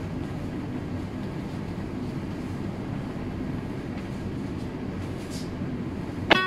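Steady low rumbling background noise with no distinct events: room tone.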